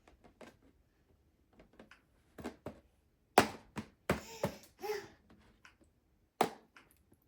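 A series of irregular sharp knocks and taps as a tool strikes a frozen ice egg, trying to chip it open; the loudest blow lands about three and a half seconds in, with a quick cluster a second later and one last knock near the end.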